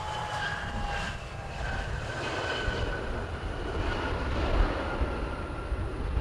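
Jet airliner's engines passing: a whine that slides slowly down in pitch over a steady low rumble.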